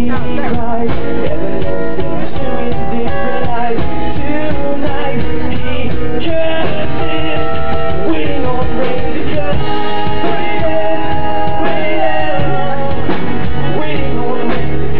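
Live acoustic rock band playing, with a singer's voice over strummed guitar chords, continuous and loud.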